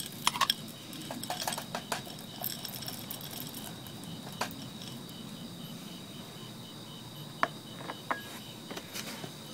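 Handling clatter of cookware: a few sharp clicks as the pot lid comes off and is set down, then light tapping and patter as marshmallows, chocolate chips and coffee beans are tipped from a glass bowl into the baking pan, and a sharp clink about seven seconds in as the glass bowl is set down. Crickets chirp steadily in the background.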